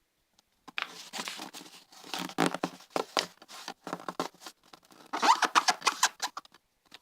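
A sheet of A4 paper rustling and crackling as it is folded in half and the crease is pressed down. It starts about a second in and is loudest in two spells, near the middle and again near the end.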